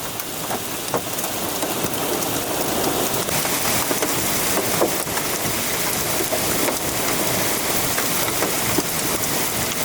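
Large hailstones pelting down in a dense, continuous clatter of many sharp impacts, growing a little heavier over the first few seconds.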